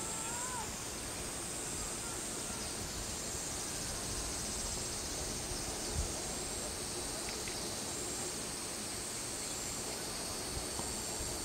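A steady, high-pitched chorus of insects, with short notes repeating on top of it. A brief rising whistled note sounds right at the start.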